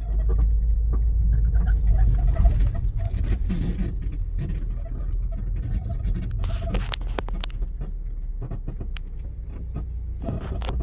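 Low steady rumble of a vehicle driving slowly, heard from inside the cab, with a few sharp clicks a little past the middle.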